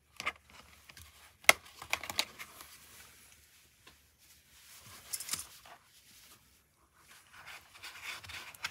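Hands handling small helmet and intercom parts: a few sharp clicks and taps, the loudest about a second and a half in, then a brief rustle and soft rubbing near the end.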